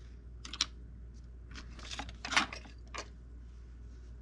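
Small metal sculpting tools handled on a wooden tabletop: a few short clicks and scrapes, the loudest about two and a half seconds in. A low steady hum runs underneath.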